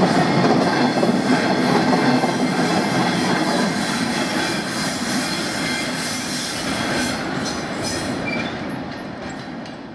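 Freight train of covered sliding-wall box wagons rolling past, the wheels rumbling and clattering over the rails. After the last wagon goes by a few seconds in, the sound slowly fades as the train moves away.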